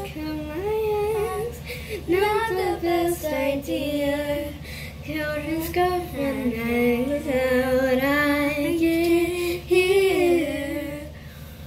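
A young girl singing unaccompanied, a slow melody with long held notes.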